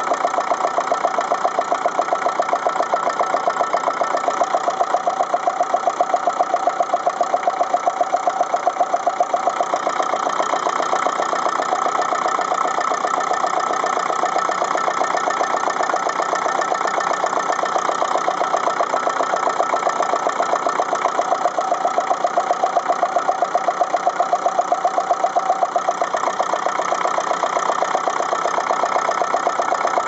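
Ferguson TEF-20 tractor's four-cylinder diesel engine running with a steady, even pulse while misfiring on three cylinders: number three is dead, which the owner puts down to its injector nozzle.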